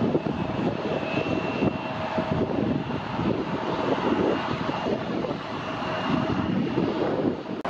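A United Express Embraer E175 jet landing, its twin turbofan engines making a steady rumble and roar with faint whining tones over it.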